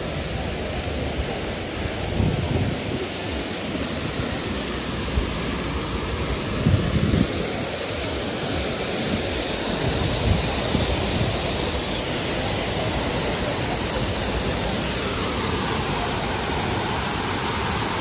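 Steady, loud rushing noise, with a few brief low thumps.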